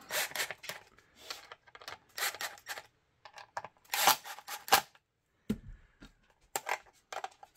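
Plastic holster shell being turned and handled: clusters of short sharp clicks and scrapes with brief pauses between them.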